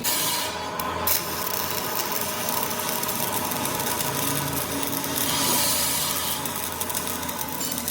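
A machine running steadily, with a louder hiss in the first second and again about five seconds in.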